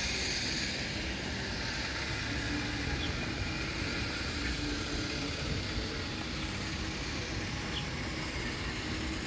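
Steady city background noise, a constant hum of distant traffic with no single event standing out.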